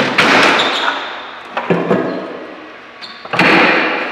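Grey rockwork shifting and knocking in a bin on a wheeled dolly: three loud clattering thuds about a second and a half apart, each trailing off.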